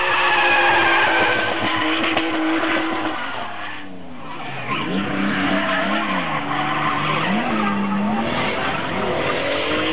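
Drift car engine held at high revs while its tyres screech through a slide. After about four seconds a car farther off revs up and down as it drifts, its pitch rising again near the end.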